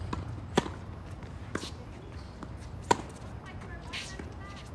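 Two sharp knocks about two seconds apart over a steady low hum, with a softer brushing noise between them.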